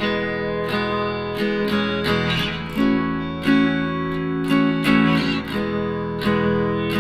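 Background music: a guitar strumming and picking chords.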